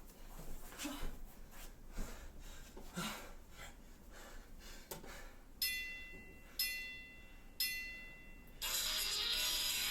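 Pause in the music with faint soft knocks about once a second, then three short electronic beeps a second apart, like a countdown, after which upbeat music starts near the end.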